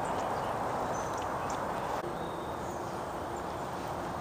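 Steady outdoor background noise in an open field, with a few faint, high chirps. A faint low hum comes in about halfway through.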